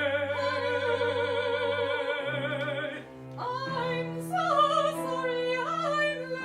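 Operatic singing with wide vibrato over sustained low instrumental notes, from a chamber opera for soprano, tenor, cello and piano. One long held note breaks off about three seconds in, and a new phrase begins that moves up and down in pitch.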